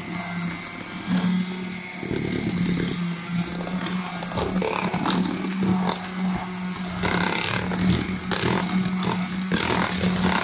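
Electric hand mixer running steadily, its whisk beaters churning cocoa powder into a thick egg, sugar and honey sponge batter in a plastic bowl. A steady motor hum sits under an uneven rattle and scrape from the beaters.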